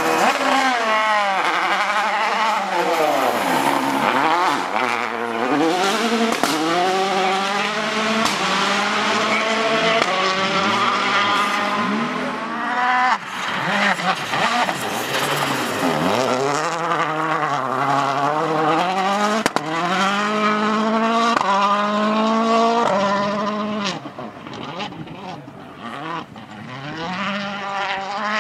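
Rally cars driven hard on a stage: engines rev up and drop back repeatedly through gear changes as the cars pass close by, with tyre and surface noise underneath. The sound eases somewhat about 24 seconds in, then picks up again.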